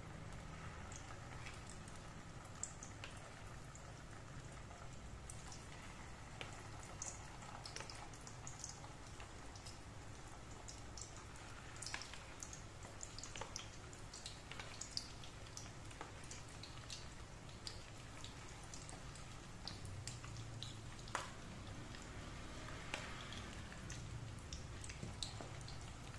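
Egg-coated potato fritters (perkedel) frying in hot oil in a pan: a faint sizzle with many scattered small crackles and pops, over a low steady hum.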